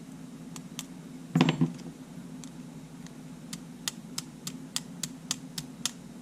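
Small hard parts clicking on the workbench while a camera's shutter button assembly is worked on to clear sand from it: one brief clatter, then a quick run of about a dozen light clicks, three or four a second, over a steady low hum.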